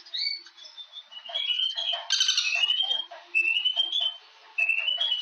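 Bird song: a run of short chirping phrases, each a few quick notes stepping upward in pitch, repeated about four times, with a denser, louder burst of notes about two seconds in.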